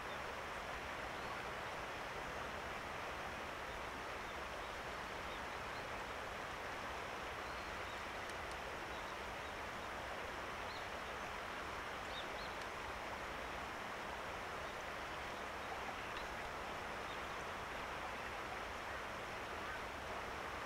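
Steady outdoor background hiss with a few faint, short high bird chirps.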